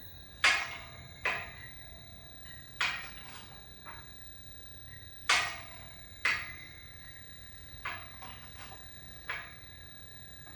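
Kick shrinker's shrinking jaws clamping down on the edge of a steel sheet as the foot pedal is kicked: about seven sharp metallic clacks at uneven intervals, each ringing briefly. The sheet edge is being shrunk to pull the panel into a curve.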